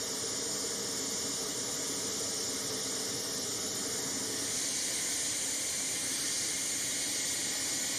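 Steady, even background hiss with no distinct events.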